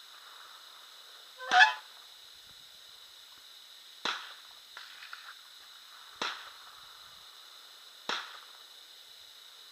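Gunshots from other shooters, sharp single cracks about every two seconds, with a louder pitched, call-like sound about one and a half seconds in.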